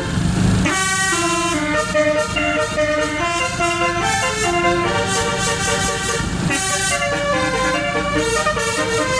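Basuri telolet bus horn playing a melody: several horn trumpets sounding together, stepping from note to note every fraction of a second, over a steady low hum. A short rush of noise comes just at the start.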